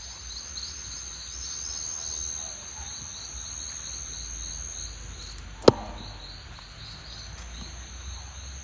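Crickets and other insects chirping in rapid repeated pulses, with a steady high buzz that stops about five seconds in. A single sharp click a little after halfway is the loudest sound.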